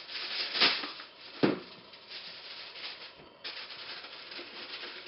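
Aluminium foil being pulled from its box and torn off, with two sharp snaps about a second apart, then crinkling as the sheet is crimped down over the edges of a loaf pan.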